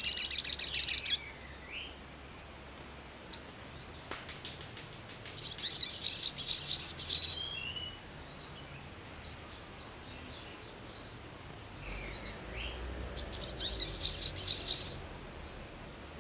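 Male olive-backed sunbird (sogon) singing: three bursts of fast, high trilling chatter, the first about a second long and the next two about two seconds each, with thin single chirps in between.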